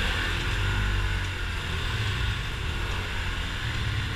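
Motor scooter's engine running at low speed, with a steady low rumble of road and wind noise.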